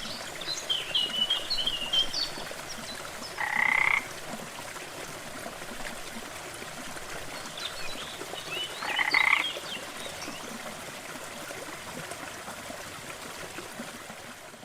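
Small waterfall's steady rush of water with frogs calling over it: two loud croaking calls about five and a half seconds apart, each under a second long, among fainter chirping calls. The sound begins to fade near the end.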